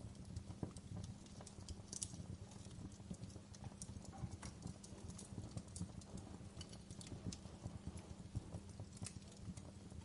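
Wood fire in a fireplace crackling: many irregular sharp pops and snaps over a steady low rumble of the burning.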